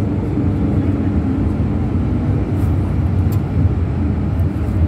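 Hong Kong MTR train's steady low rumble, heard from inside the carriage as it runs along a station platform.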